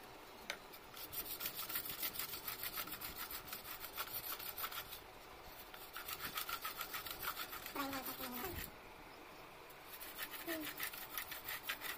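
Steel planer blade held in a wooden wheeled jig, scraped back and forth across a perforated metal sharpening plate, about four quick strokes a second, in three runs with short pauses: the blade edge being sharpened.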